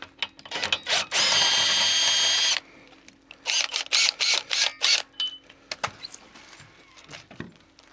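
Power drill running at a steady speed for about a second and a half, then a quick run of short bursts and clicks.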